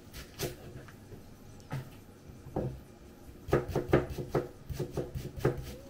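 Kitchen knife cutting a Japanese long green onion (negi) on a plastic cutting board: a few separate knife taps, then from about three and a half seconds a quick run of taps, around five a second.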